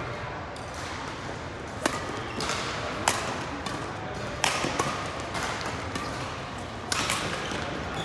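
Badminton rackets striking the shuttlecock in a doubles rally: sharp hits about a second or so apart over the steady background of a large hall.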